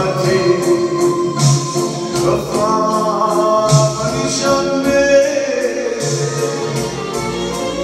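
A man singing an Italian love song into a handheld microphone, drawing out long, bending notes over a backing track of keyboard/organ chords, bass and a steady drum beat.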